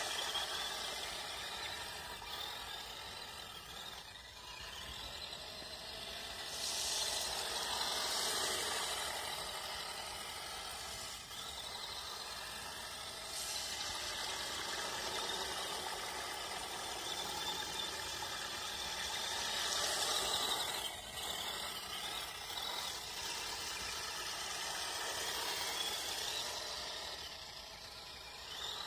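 Radio-controlled Axial SCX10 crawler driving through shallow water: the whine of its electric motor and drivetrain mixed with water hissing and splashing around the wheels, swelling in several surges as the throttle is opened.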